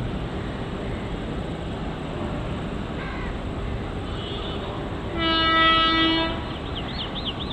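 Indian Railways WAP-4 electric locomotive approaching with a steady rumble, then sounding its horn once, a single steady blast of a little over a second, about five seconds in.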